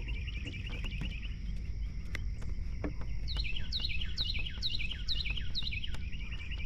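Songbird chirping outdoors: a brief twittering trill at the start, then a run of about six quick, downward-sliding chirps in the middle, over a steady low outdoor rumble.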